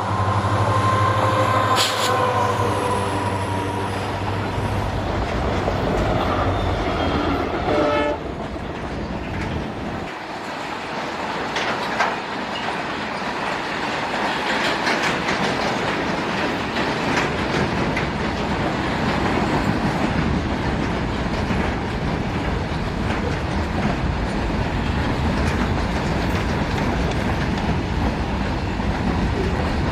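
A train's horn sounds for the first few seconds, then a train passes close by with a steady rolling rumble and the clatter of its wheels over the rail joints.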